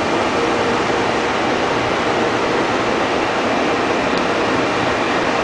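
Trenitalia E652 chopper-controlled electric locomotive starting off slowly with a freight train: a steady, loud rushing noise with a faint steady tone.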